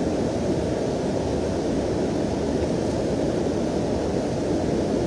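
Steady low rushing of a river's current, an even roar with no breaks.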